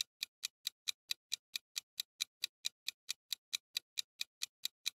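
Clock-style ticking sound effect of a quiz countdown timer: quick, evenly spaced ticks, about four to five a second.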